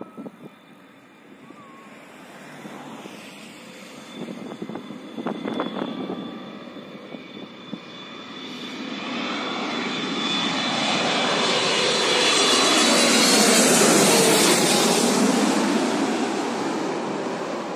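Twin-engine widebody jet airliner on low final approach, passing overhead. The jet engine noise builds steadily under a high whine, is loudest about thirteen to fourteen seconds in as the plane goes over, then fades as it moves away.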